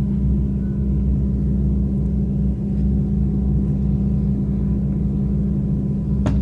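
A steady low droning hum with no change in pitch or level, and a single sharp click near the end.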